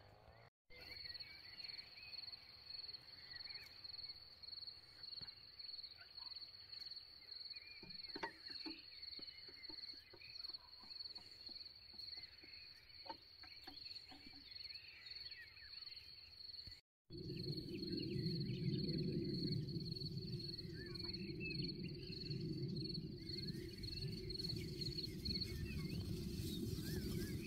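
Insects chirping faintly: a steady, evenly pulsing high-pitched chirp. About two-thirds of the way through there is a brief dropout, and after it a louder low rumbling noise joins the chirping.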